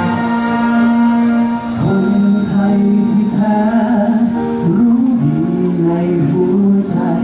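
A Thai navy band playing: a held chord for about two seconds, then voices singing a melody with the band's accompaniment.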